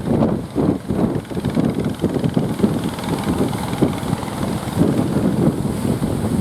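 Wind buffeting the microphone in uneven, loud gusts of low rumble.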